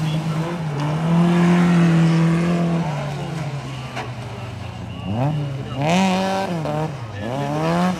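Folkrace cars' engines running hard on a muddy dirt track. A steady engine drone gives way in the second half to one car revving sharply up and down two or three times as it slides sideways through the corner.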